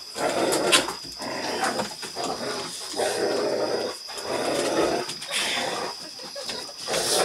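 Dogs play-growling during rough play, in rough bouts of about a second with short breaks between them.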